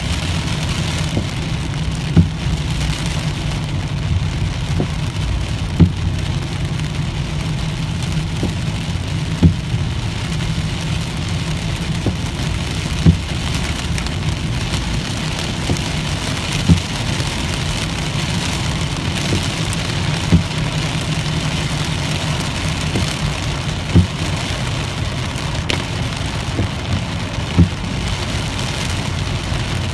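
Inside a car driving in heavy rain: a steady low rumble of road and engine noise with rain hissing on the windshield. A short thump from the windshield wipers comes about every three and a half seconds.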